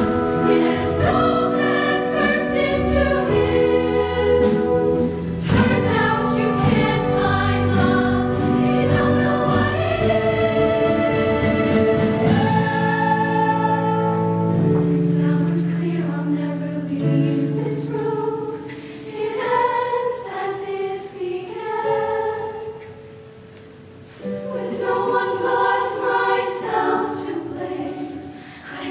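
Women's show choir singing sustained chords in harmony over a low instrumental accompaniment. About two-thirds of the way in the accompaniment drops away and the voices thin to a brief hush, then the full choir comes back in near the end.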